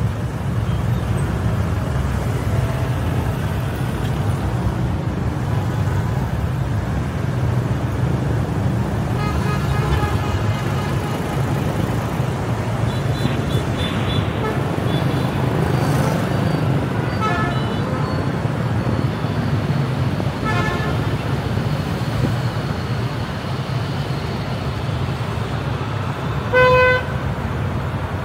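City traffic at night: a steady low rumble of engine and road noise, broken by several short horn toots from surrounding vehicles. A louder honk of about half a second comes near the end.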